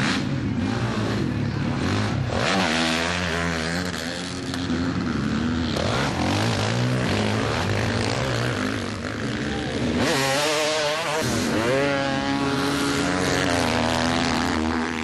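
Motocross bikes racing on a dirt track, their engines revving up and down as the riders open and close the throttle, with sharp rising revs about two thirds of the way through.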